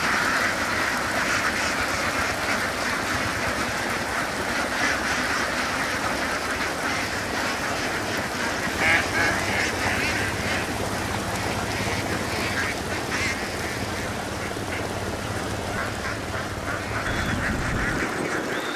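A large flock of laying ducks quacking continuously, many calls overlapping into a dense chatter, over a steady low hum.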